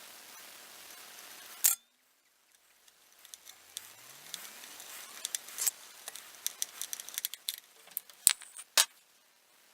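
Small metallic clicks and light jingling from a hand-wound wire spring being handled, with a sharp click about two seconds in and two more sharp clicks near the end.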